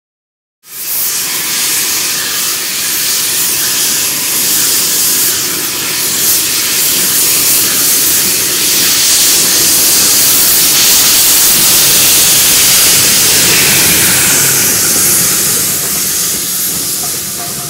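Loud, steady hiss of steam blowing from a small Orenstein & Koppel steam tank locomotive's open cylinder drain cocks as it moves off. The hiss starts suddenly about half a second in and eases a little near the end as the carriages pass.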